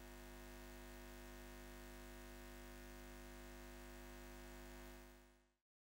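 Near silence: a faint, steady hum that fades out near the end.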